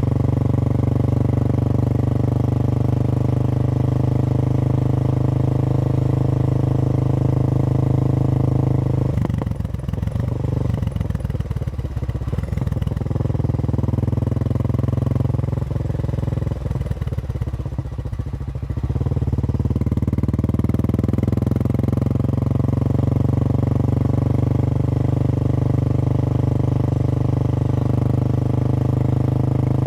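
Royal Enfield Bullet's single-cylinder engine running steadily as the motorcycle is ridden. For about ten seconds around the middle the note drops and turns uneven, then settles back to a steady run.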